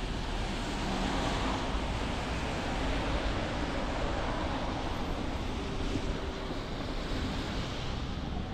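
Street traffic noise: a steady rush of passing vehicles with a low rumble, swelling about a second in and easing toward the end.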